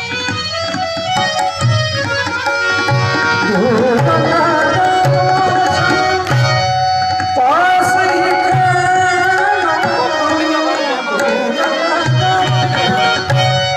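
Indian music: a steady hand-drum rhythm under a melody of long held notes that glide up into them.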